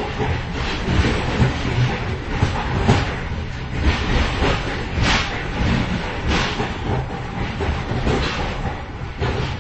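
Inside a moving train's vestibule between cars: a steady low rumble of wheels on track, with irregular clattering and metallic knocks and rattles from the couplings and gangway, a few of them louder and longer.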